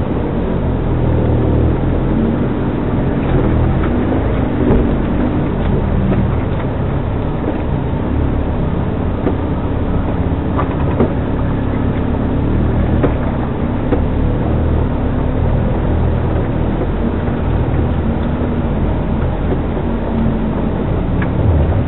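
Off-road 4x4's engine running steadily at low speed as it crawls over a rough trail, heard from inside the cabin, with a few short knocks and rattles from the bumps.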